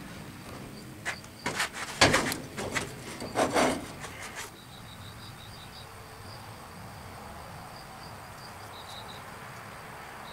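Metal sand-casting flask halves knocking and scraping as one half is lifted off and set down on the rails of the sand bin, a burst of clunks in the first few seconds. Faint repeated high chirping runs underneath afterwards.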